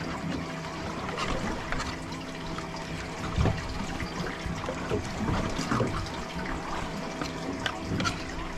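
Water trickling and splashing, with scattered small clicks and knocks, over a faint steady hum.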